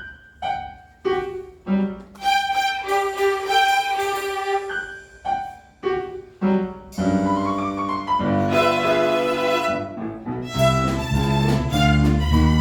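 A violin ensemble plays. It opens with short, detached chords, then moves into longer bowed notes. About seven seconds in, a fuller part with lower notes joins.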